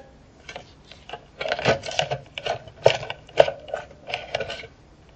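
Metal wire frame clinking and knocking against a plastic pitcher as it is lifted out of a rust-remover bath: a quick, irregular run of clicks and rattles that stops about four and a half seconds in.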